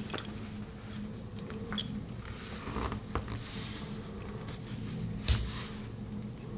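Victorinox Farmer X Alox Swiss Army knife being handled: a few sharp metallic clicks as its spring-loaded tools snap open or shut, the loudest about five seconds in, with soft rubbing and fiddling in between. A steady low hum underneath.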